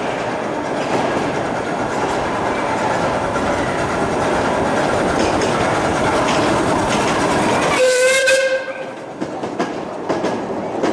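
A 1957 457 mm-gauge miniature steam locomotive and its passenger cars running steadily past on the track. It gives one short whistle blast about eight seconds in.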